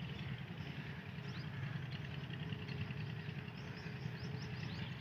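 Small birds chirping and twittering repeatedly over a steady low background rumble.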